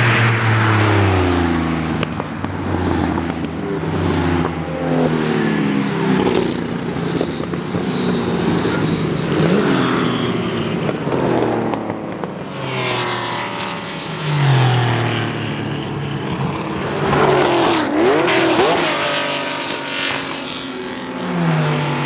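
Several Porsche 911 race cars' flat-six engines passing one after another at racing speed, the engine notes repeatedly climbing and dropping as the cars rev and change gear.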